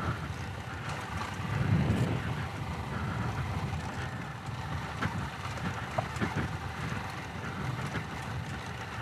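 Moto Morini X-Cape's parallel-twin engine running at low speed on a rough dirt lane, a low rumble that swells briefly about two seconds in, with wind noise on the microphone. A few light clicks come around the middle.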